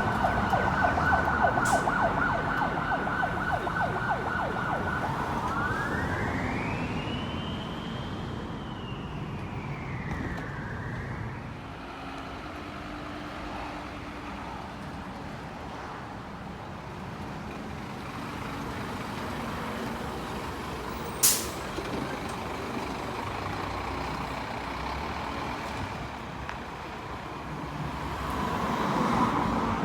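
Fire engine pumper siren on a fast yelp, switching about five seconds in to a slow wail that rises and falls once, then stops, leaving the truck's engine and road noise. A single sharp click about 21 seconds in.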